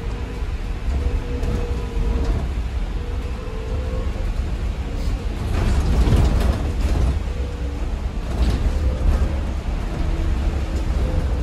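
Cabin sound of a BYD-chassis ADL Enviro 200 EV electric bus on the move: a low road and tyre rumble with creaks and rattles from the body and fittings, and a faint steady whine from the electric drive. The rumble and rattling get louder for a stretch around six seconds in.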